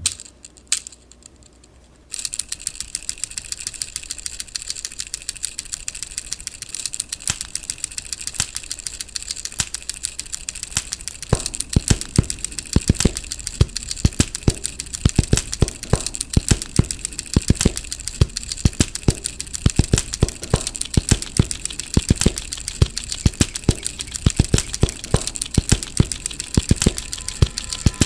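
A rhythmic beat built from the clicks and snaps of a Victorinox Cybertool 42 Swiss Army knife's tools being opened and shut. One or two lone clicks come first; about two seconds in a fast, even pattern of sharp clicks starts, and heavier low thumps join it from about eleven seconds.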